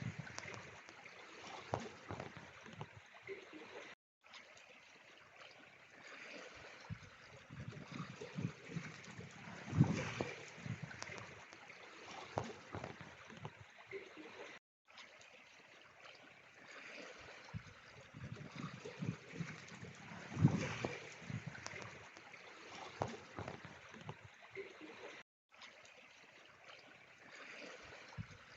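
Faint trickling, gurgling water with uneven swells, a short stretch that repeats about every ten seconds with a brief dropout to silence each time round, as from a looped ambience track.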